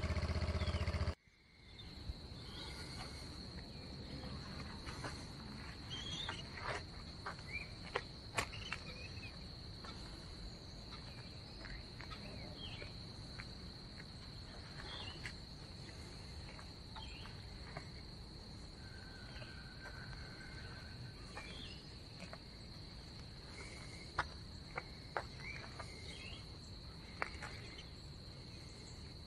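Piaggio Liberty 150 scooter's single-cylinder engine idling, then switched off abruptly about a second in. After that comes a steady high-pitched insect trill, with short bird chirps here and there.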